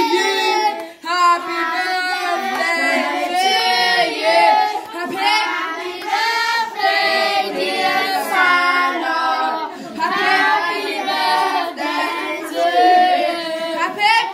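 A group of children, joined by adults, singing a birthday song together in high voices.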